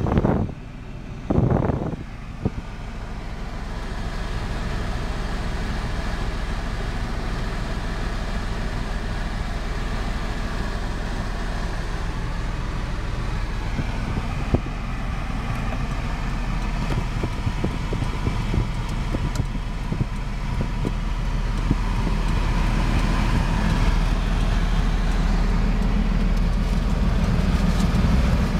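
Suzuki Carry DD51T kei truck's small three-cylinder engine running, heard from inside the cab as the truck drives slowly, steady and growing a little louder near the end. Two loud bumps of handling noise come at the start.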